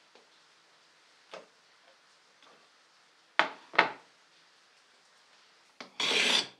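Wooden workpieces knocking against each other or a workbench: a few separate sharp knocks, the loudest two close together about halfway through, then a short rasping rush near the end.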